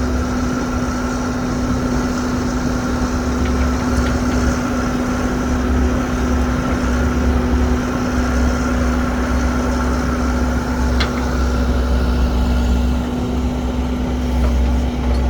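Heavy diesel engines of an excavator and a dump truck at a loading site, running steadily with a constant low hum and one sharp click about eleven seconds in.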